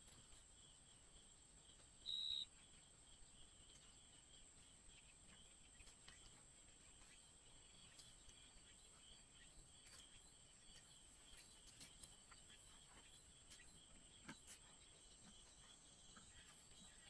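Near silence with a faint, steady, high-pitched insect chirring throughout, broken by one brief high chirp about two seconds in and a few faint ticks.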